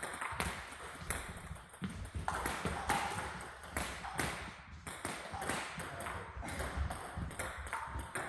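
Table tennis balls clicking sharply off bats and table tops in quick, irregular succession during rallies.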